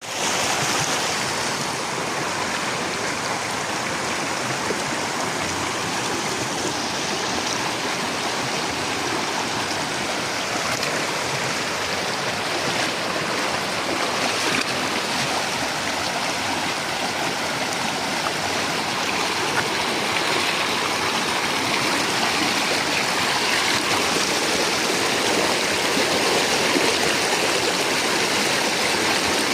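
Fast-flowing stream water rushing steadily, with a few faint ticks on top.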